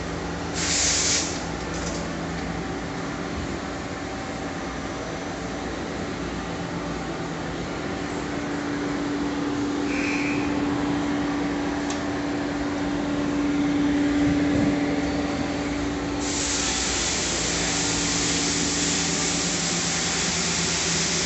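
Steady machinery hum with a couple of steady low tones. There is a short burst of hiss about a second in, and a steady hiss joins the hum about three-quarters of the way through.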